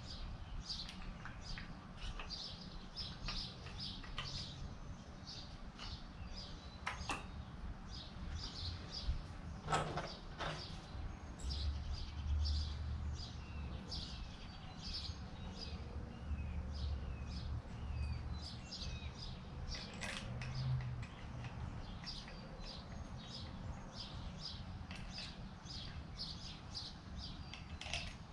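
Outdoor birds chirping in quick repeated runs of short, high notes, with a few sharp knocks and a low rumble underneath.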